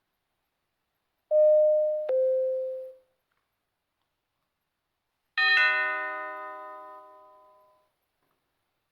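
Two doorbell chimes: a two-tone ding-dong, high note then low note, dying away within about a second; a few seconds later a second chime of several tones sounding together, fading out over about two and a half seconds.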